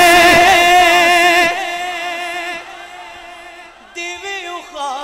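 A man singing an unaccompanied Punjabi devotional song into a microphone: a long held, wavering note that drops off about a second and a half in, quieter held tones after it, then a new sung phrase beginning about four seconds in.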